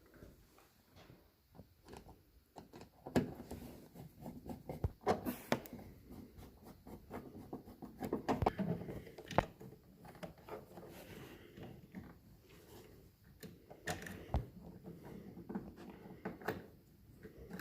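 Irregular clicks, knocks and rustling from hand work on a pickup truck's interior door trim and armrest.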